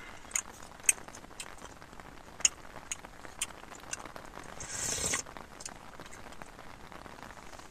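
A metal spoon clinking and scraping against a bowl as it scoops hot milk with chocos cereal, then a loud slurp from the spoon about five seconds in.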